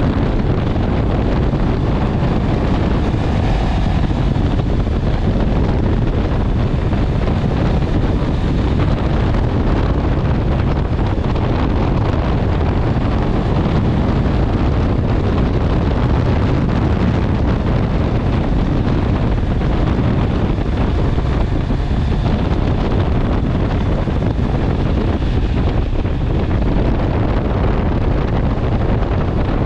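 Steady wind rushing over the microphone of a Honda CB650R motorcycle at road speed, with the bike's engine running under it.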